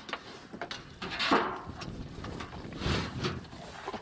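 Aluminium milk cans and gear being handled and set down from a car's open boot: irregular knocks and scrapes, the loudest a little over a second in.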